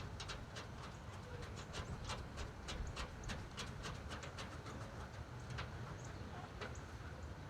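Faint, irregular clicks and taps of small metal parts being handled as a lock cylinder is fitted into a truck toolbox lid, over a low steady background rumble.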